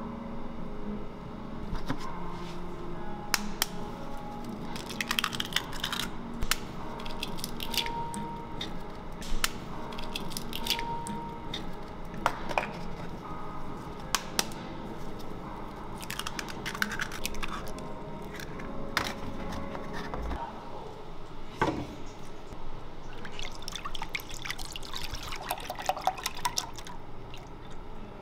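Hand preparation of custard cream filling: wet liquid sounds with many sharp taps and clinks as thick cream is worked in a stainless steel bowl, eggs are cracked into a steel bowl, and milk is stirred with a spatula in a pot.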